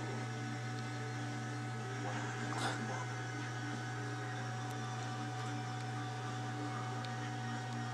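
Steady low electrical hum with a faint, thin, steady tone above it, and a brief rustle about two and a half seconds in.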